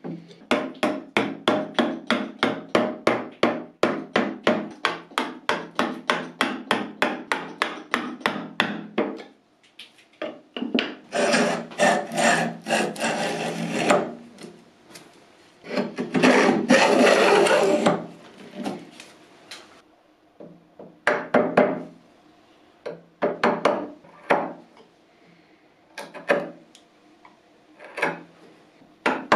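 A 6 mm chisel chops into the wood of the channel with quick, even taps, about four a second, for the first nine seconds. Then a vintage Record router plane scrapes and cuts along the channel in two passes of a few seconds each. Near the end the chisel pares by hand, giving scattered single clicks.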